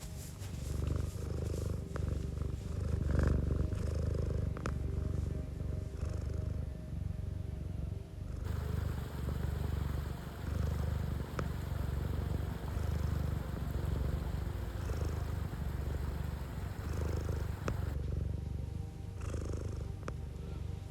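Domestic cat purring close up: a low, continuous rumble that swells and eases in a regular rhythm.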